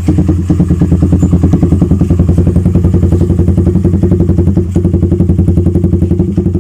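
Motorstar Z200S motorcycle engine idling low through an aftermarket Austin Racing canister exhaust with a big elbow and resonator: a loud, steady train of rapid exhaust pulses, kept fairly mild by the resonator.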